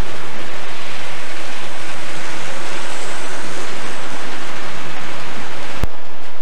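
A train rolling past: a steady rushing noise with a faint low hum, and one sharp click near the end.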